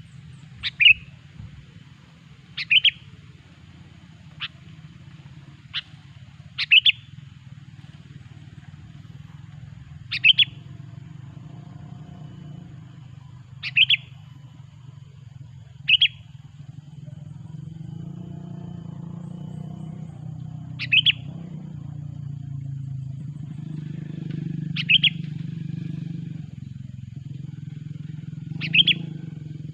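Sooty-headed bulbul (kutilang) giving short, sharp single call notes about every two to four seconds, used as a lure call for trapping bulbuls. A low background rumble grows louder from about halfway through.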